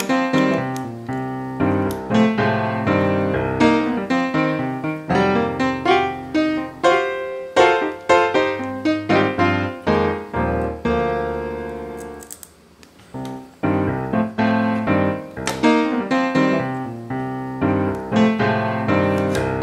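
Background piano music, notes struck in a steady stream, with a brief pause about twelve seconds in.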